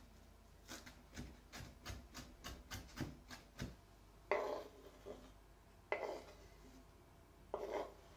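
Chef's knife chopping basil on a bamboo cutting board: a quick run of about a dozen light chops, roughly four a second. Then three longer scrapes, the loudest sounds here, as the blade pushes the chopped leaves across the wood.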